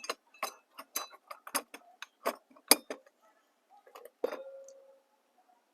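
Metal clicks and clinks as a metal outdoor wall lamp and its mounting hardware are fitted and fastened: a quick irregular run of ticks, then one knock about four seconds in that leaves a short metallic ring.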